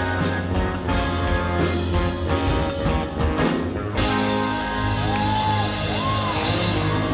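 A live band of keyboards, guitar, bass and drums plays the closing bars of a ballad. Drum strikes beat over held chords, then about four seconds in the band hits a final sustained chord with crashing cymbals. A voice slides up and down over the chord.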